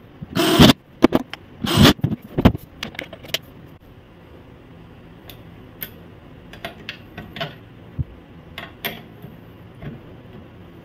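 Handling noise from a 16-channel audio mixer being turned over and set down on a workbench: a run of loud clunks and rattles in the first few seconds. Then come softer scattered clicks as a plug is pushed into its top panel and buttons on its player section are pressed.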